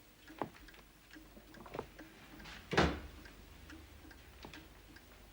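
Faint ticking and scattered light knocks in a quiet room, with one louder thud nearly three seconds in.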